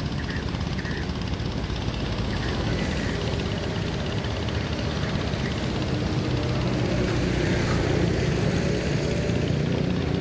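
Boat engine running steadily, a low drone that grows a little louder over the last few seconds.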